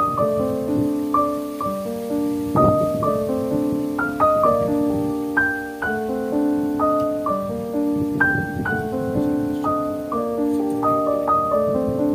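Background music: a piano-like keyboard playing a melody of held notes, each new note coming in cleanly every half second or so.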